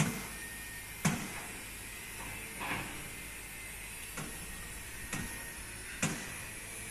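Diesel engine of a Kobelco long-reach excavator running with a steady low hum, under sharp knocks that come irregularly about once a second.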